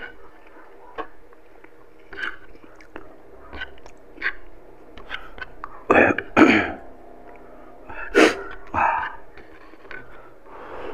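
Close-up eating sounds of a man eating pork with his hands: soft chewing and small wet mouth clicks. These are broken by a few loud, short bursts of breath from the mouth and nose, two just after six seconds in and two more around eight seconds.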